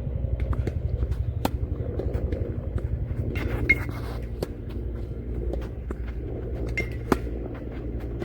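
Tennis ball struck by rackets a few times in a singles rally, sharp pops a couple of seconds apart, over a steady low rumble.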